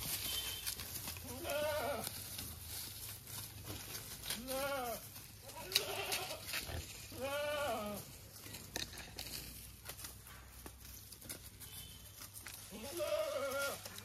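Goats bleating: four separate calls, each under a second long, spread across a few seconds.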